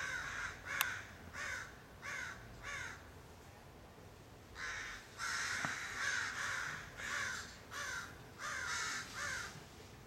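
Several American crows cawing over and over in two bouts of harsh, repeated caws, the second bout denser, with a pause of a second or two between them. A single sharp click about a second in.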